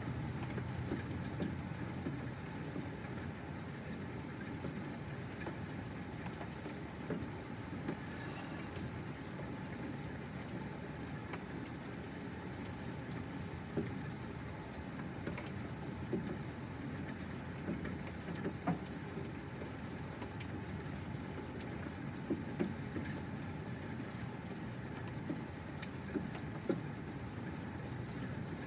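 Steady rain falling during a thunderstorm, with scattered sharper taps of individual drops.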